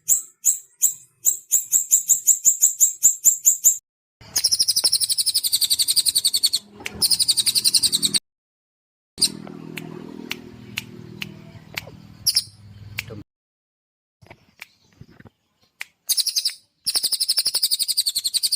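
Small songbird singing: quick runs of sharp high chirps, then long, very fast high trills in several bursts separated by short gaps.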